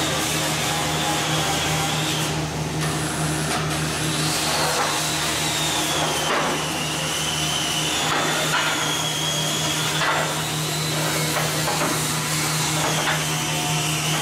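Steady machine hum in a steel fabrication shop with a high whine that drifts up and down, and a few short clanks of steel being handled.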